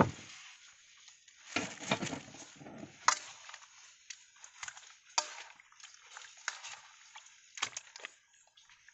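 Fish steaks coated in wet spice paste being moved by hand in a stainless steel bowl: a handful of separate clicks and knocks against the steel, the loudest at the start and about three seconds in, with a brief noisier stretch about two seconds in.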